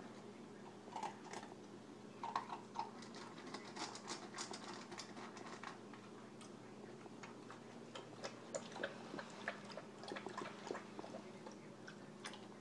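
German Shepherd puppy biting and gnawing a hard plastic Jolly Ball: irregular clicks and taps of teeth on plastic. A steady low hum runs underneath.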